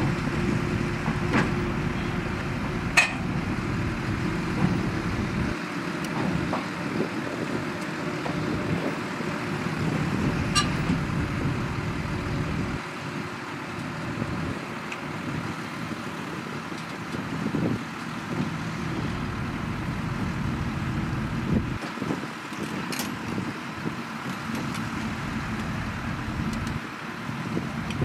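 Shantui DH17C2 crawler bulldozer's diesel engine running steadily as it works, with a few sharp clicks, the loudest about three seconds in.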